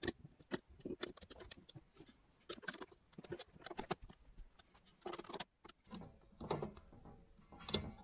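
A small screwdriver working the terminal screws and metal mounting frames of flush wall sockets as the wire clamps are retightened: faint, irregular small clicks and taps.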